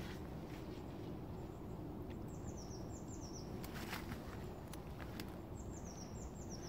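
A small bird sings twice, each time a short run of quick, high, descending notes. Under it, a few soft knocks come from a wooden stick digging into wet, muddy ground.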